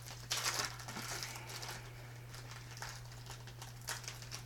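Foil wrapper of a 2014 Contenders football trading card pack being torn open and crinkled, loudest in the first second, then lighter rustling as the cards come out.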